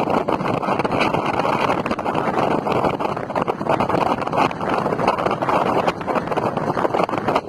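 Coaches of a departing express train rolling past: a steady rumble and rattle of steel wheels on the rails, with frequent short clicks.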